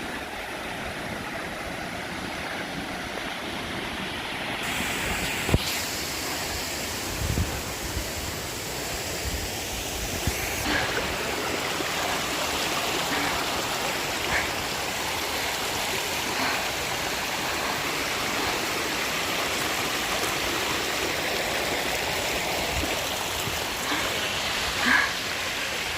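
Steady rush of flowing water from the river and falls along the trail, with a few short knocks about five seconds in, about ten seconds in and near the end.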